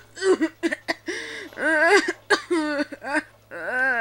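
A boy's voice crying out and wailing in distress: several high-pitched, wavering cries with short gaps between them, over a faint steady hum.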